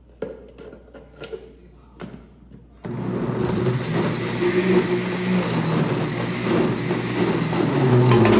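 A few light clicks and knocks, then about three seconds in a kitchen blender switches on abruptly and runs steadily, blending a liquid corn cake batter.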